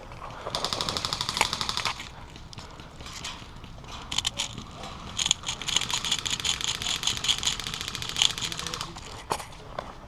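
Airsoft guns firing full-auto bursts: a short, loud, rapid burst of about a second and a half early on, then a longer burst of several seconds, with a few single shots or knocks in between.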